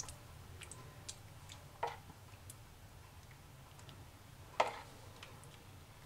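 A metal spoon clinking lightly against dishware while sauce is spooned over food: a few scattered, irregular taps, the loudest about four and a half seconds in.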